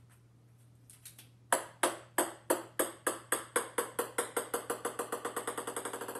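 A ping-pong ball bouncing on a hardwood floor. The bounces come faster and fainter until they run together into a rapid patter as the ball settles.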